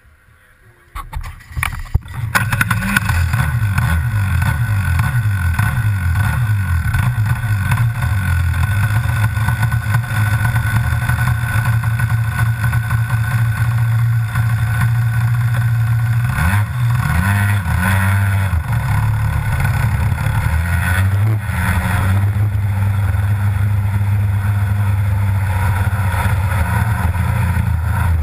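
Rotax Max 125cc two-stroke kart engine starting about a second in, then running loudly with its pitch rising and falling as it is blipped. By the end the kart is under way.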